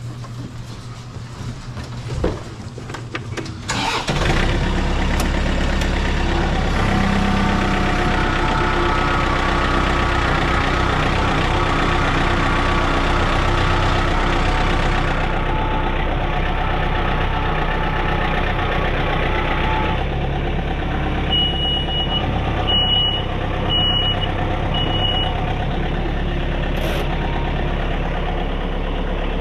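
Mini excavator's diesel engine starting about four seconds in, after a few clicks, then running steadily. Four short high beeps sound about a second apart a little over two-thirds of the way through.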